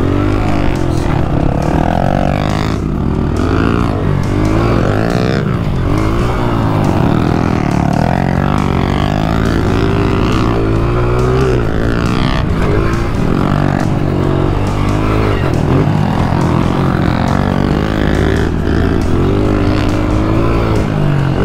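Pit bike engine revving up and down as the bike is ridden around a dirt track, its pitch repeatedly rising and then dropping with the throttle and gear changes.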